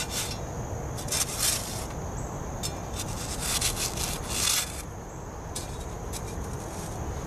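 A hand digging tool's blade scraping and cutting into dry, sandy fill soil under a soil-sampling ring, in four or so short rasping scrapes in the first five seconds, then quieter.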